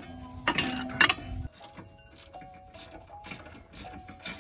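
Steel socket wrenches on the Miata's 17 mm lower shock mount bolt: a couple of loud clacks in the first second as the bolt is broken loose, then a ratchet clicking as the bolt is backed out.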